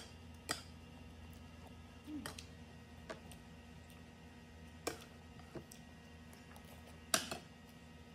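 Metal spoon and fork clicking and scraping against a ceramic plate of rice while eating: a few sharp clinks a second or so apart, the loudest near the end.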